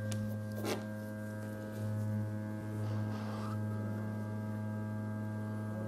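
Hot-air SMD rework station running with its air flow at minimum: a steady hum from its blower. A light click comes a little under a second in.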